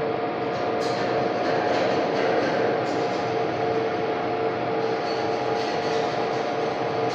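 Metal lathe running: a steady machine whine held on two constant pitches over a dense hiss, with a few faint ticks.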